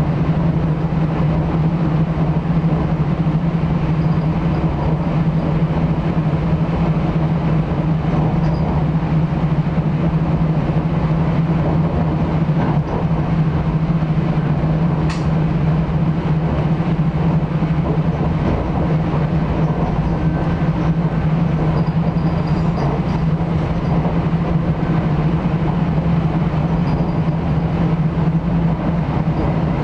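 The inside of a New Jersey Transit electric commuter train car running at speed: a steady rumble with an even low hum. One sharp click comes about halfway through.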